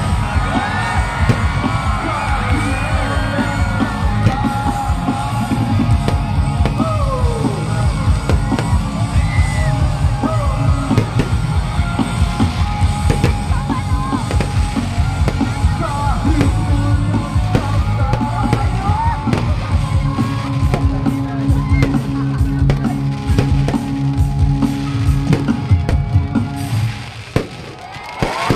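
Live rock band playing through a concert PA, with a heavy drum beat, singing, and the crowd yelling along. The music drops away near the end.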